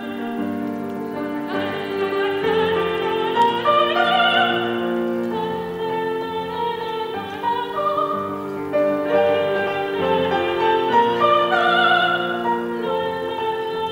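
Operatic soprano singing a slow Basque song in classical style, with grand piano accompaniment. She holds long notes with vibrato.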